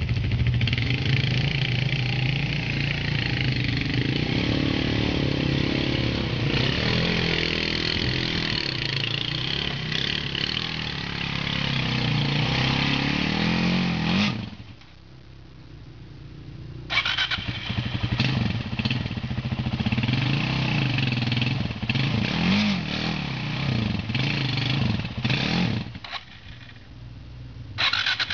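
ATV engine running and revving, its pitch rising and falling as the throttle is worked. The engine noise drops away abruptly about halfway through for a couple of seconds, then returns, and dips again briefly near the end.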